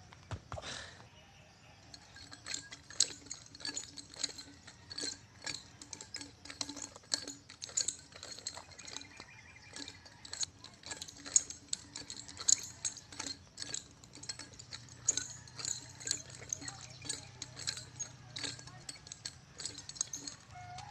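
Nunchaku being spun and caught: an irregular run of short clacks and rattles, several a second, as the sticks and their link knock together and against the hands. A single thud comes just under a second in.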